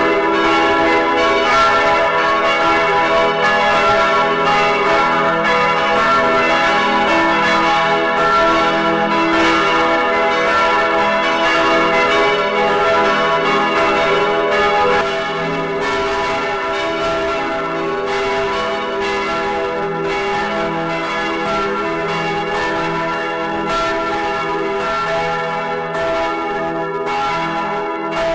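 Several church bells ringing together in a continuous full peal, their overlapping tones sounding steadily; the peal becomes a little quieter about halfway through.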